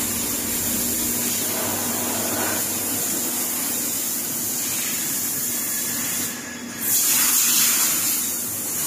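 Automatic TIG welding torch running an arc on stainless steel: a steady hiss with a faint high whine. The high part drops out briefly about two-thirds of the way through, then comes back a little louder.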